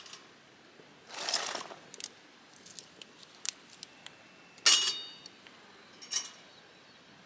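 Handling of small camp cooking and tableware items: scattered light clicks, a brief rustle about a second in, and a sharp clink with a short ring a little past the middle.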